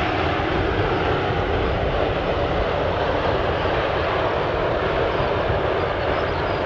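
Boeing 737-300's CFM56-3 turbofan engines running, a steady loud jet noise with a rough low rumble.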